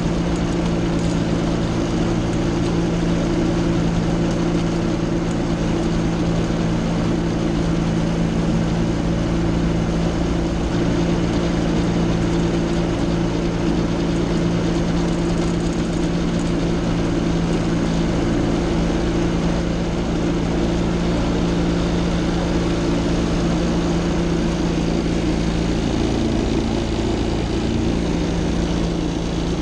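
Aerolite 103 ultralight's engine and propeller running steadily at low power while taxiing, with the engine note wavering briefly about four seconds before the end.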